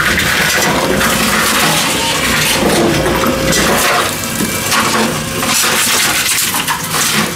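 Tomra T-53 reverse vending machine taking in a plastic bottle through its round intake: the machine runs and the container knocks and rattles a few times, over a steady background noise.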